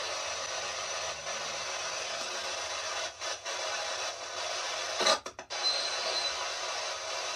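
Spirit box (radio-sweep ghost box) hissing steady static, with brief dropouts about three seconds in and a sharp crackle about five seconds in, followed by a few quick cutouts.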